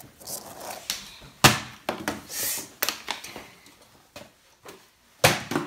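Partly filled plastic water bottle being flipped and landing with a hard thud on a tiled floor, twice, about four seconds apart, with smaller knocks and handling noise between.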